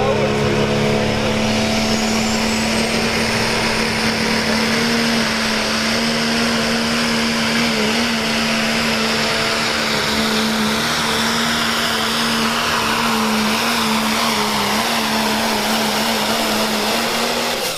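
Second-generation Dodge Ram pulling truck's Cummins diesel held at high revs under full load while it drags the pulling sled, a steady, slightly wavering engine note over a dense roar. A thin high whine rises in pitch over the first few seconds.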